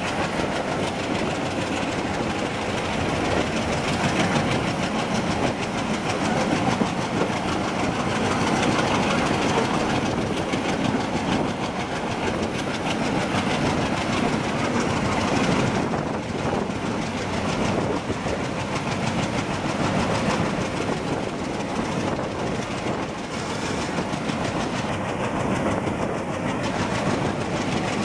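Freight train running alongside on the next track at very close range, its diesel locomotives and then covered wagons going by: a steady, loud rumble and clatter of steel wheels on rail.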